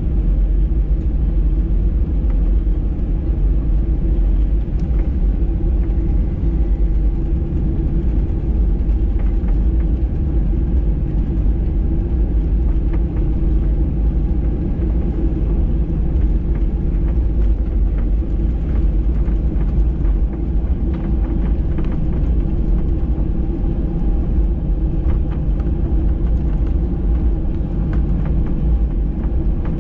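Boeing 737-800 cabin noise heard from a window seat: a steady loud drone and rumble from its CFM56 engines, with a few low steady tones and faint light rattles.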